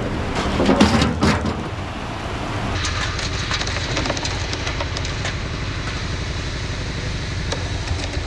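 Diesel engine of a ready-mix concrete truck running steadily with a low rumble, with a fast run of light, even clicks from about three seconds in.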